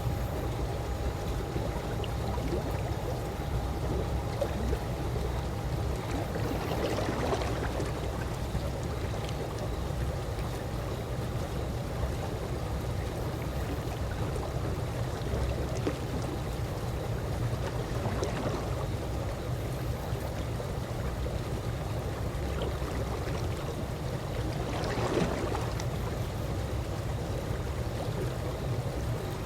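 Calm swimming-pool water lapping and gurgling steadily, with a few slightly louder splashy swells and a faint steady hum underneath.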